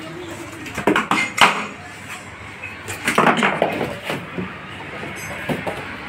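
New aluminium car AC condenser being handled in its cardboard box: a few sharp knocks and clinks about a second in, a denser stretch of rattling in the middle, and light taps near the end.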